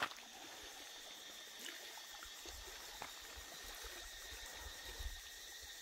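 Faint ambience of calm sea water lapping softly on a pebble and rock shore, with an occasional low rumble.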